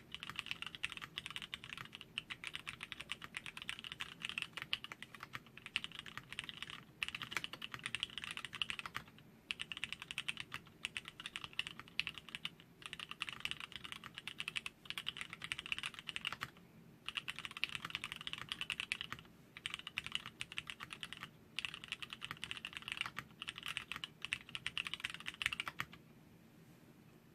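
Fast typing on a D460-GT wooden-cased custom mechanical keyboard with lubed Cherry MX Black linear switches on 60 g springs, PCB-mounted, with Evergreen keycaps. The keystrokes come in quick runs broken by short pauses and stop about a second before the end.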